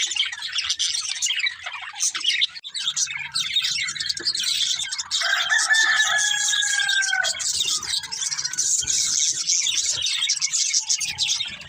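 Budgerigars chattering and warbling in a dense, continuous stream of chirps. About five seconds in, one drawn-out, slightly falling call stands out for about two seconds.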